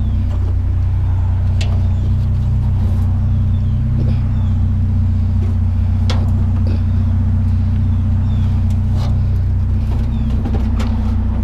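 Truck engine idling with a steady low hum, with scattered light clicks and knocks from the load being handled and tied down.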